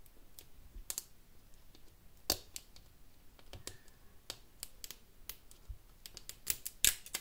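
Fingernails picking and scratching at the plastic wrapping of an L.O.L. Surprise! Sooo Mini ball to peel it open: scattered sharp plastic clicks and crackles, coming more often near the end.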